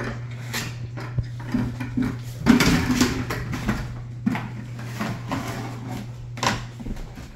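Rottweiler puppy knocking and pushing an empty plastic bucket about on a hardwood floor: a string of hollow knocks and scrapes, busiest about two and a half seconds in, with a sharp knock near the end. A steady low hum runs underneath.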